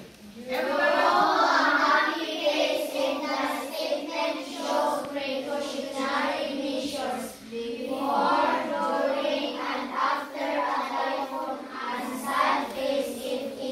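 A class of schoolchildren reading aloud together in unison, in a drawn-out, sing-song chant, with a short pause about seven seconds in.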